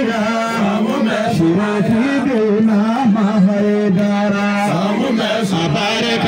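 Zikiri devotional singing: a man's voice sung through public-address loudspeakers, holding long notes that bend and ornament in pitch.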